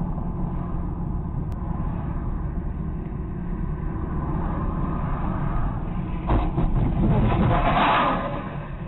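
Steady road and engine rumble heard from inside a car. About six seconds in come several sharp knocks and then a loud scraping clatter lasting about two seconds, as a wheel comes off and debris hits the road ahead.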